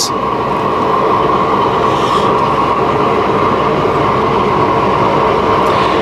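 A loud, steady rushing drone with a constant hum in it, unbroken and without any hammer strikes.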